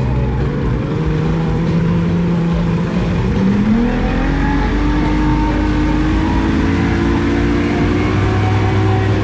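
1999 Evinrude FICHT 150 two-stroke outboard running under way, its pitch rising about three seconds in as it speeds up, then holding steady at higher revs.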